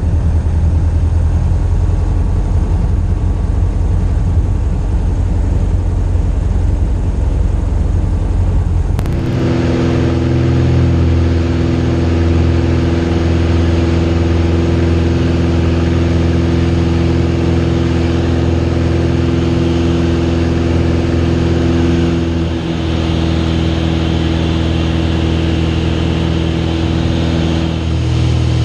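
Light aircraft's piston engine and propeller at high power, heard from inside the cockpit of a Vans RV during the takeoff roll and climb-out. A rough low rumble changes abruptly about nine seconds in to a steady engine note with several held tones.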